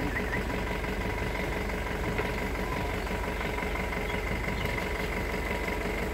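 Safari jeep engine idling steadily, a low even hum.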